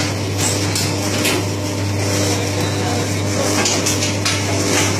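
Mushroom substrate bag-filling machine with its conveyor running: a steady low motor hum with a higher tone above it, and scattered light knocks and rattles.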